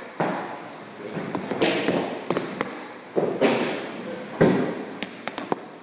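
Hockey pucks being shot: a series of sharp knocks of stick on puck and pucks striking the goalie's pads, net and boards, some with a short scrape of stick or puck along the floor.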